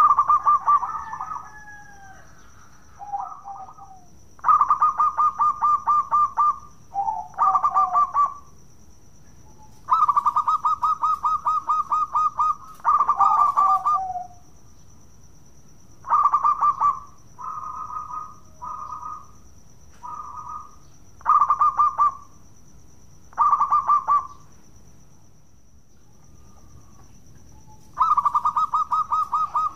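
Zebra dove (perkutut) cooing in repeated phrases of rapid, stuttering coo notes, each a second or two long, some ending on a lower note. The phrases come one after another with short gaps, and there is a longer pause near the end before it starts again.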